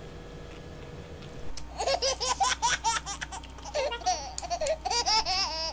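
A woman laughing: high-pitched laughter in quick, breathy bursts, starting about one and a half seconds in after a short quiet stretch.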